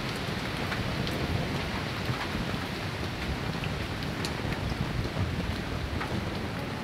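Steady light rain falling on wet ground and puddles: an even hiss with scattered ticks of single drops.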